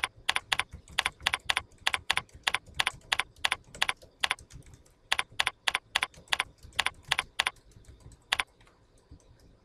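Typing on a computer keyboard: a quick run of key clicks, about three to four a second, with a short pause near the middle, stopping about a second before the end.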